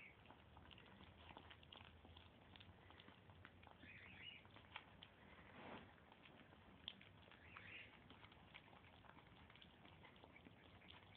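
Faint clicking and pattering from pitbull–Lhasa Apso mix puppies eating, with a couple of brief high squeaks or whimpers from the puppies.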